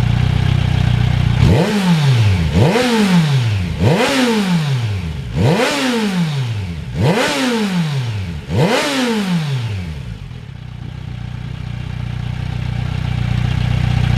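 Kawasaki Versys 1000's inline-four engine running through the mid pipe alone, with no muffler: idling, then blipped six times in quick succession, each rev climbing and dropping straight back, before it settles to a steady idle again.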